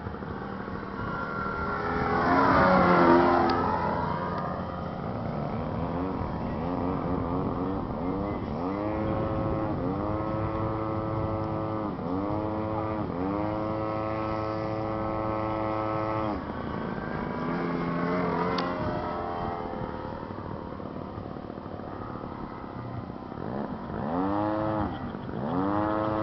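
Radio-controlled aerobatic model airplane's motor and propeller whining through maneuvers. The pitch sweeps up and down with throttle and passes, loudest in a fly-by about two to three seconds in. It holds a steadier high pitch in the middle stretch and swoops again near the end.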